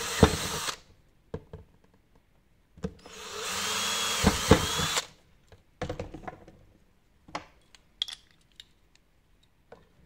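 Cordless drill boring 5 mm holes into a uPVC door sash profile. One hole finishes within the first second; a second hole is drilled for about two seconds, the motor whine rising near the end. A few light knocks and clicks follow as the drill and hinge parts are handled.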